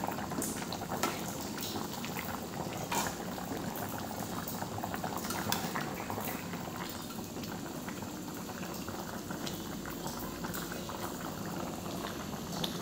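A pot of coconut-milk curry boiling hard, with a steady bubbling and popping throughout.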